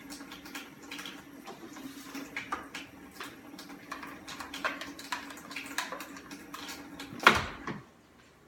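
Water running from a tap as slime is washed off hands, a steady hum with scattered small splashes and clicks. About seven seconds in, a loud clunk, and then the water stops.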